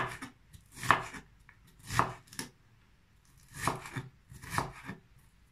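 Chef's knife chopping a red kapya pepper into small cubes on a wooden cutting board: separate sharp knocks of the blade on the wood, roughly one a second, with a short pause in the middle.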